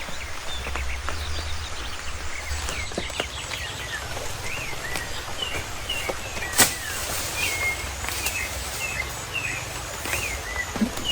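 Small birds chirping throughout in short, curving notes, over a low steady rumble. One sharp knock a little past halfway.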